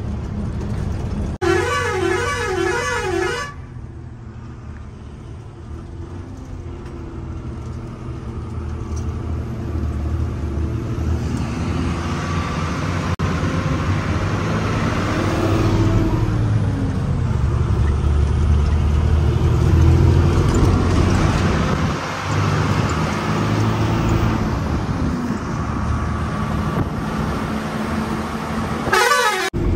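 Truck engine running on the move, its drone growing louder through the middle. A wavering horn sounds for about two seconds near the start and briefly again near the end.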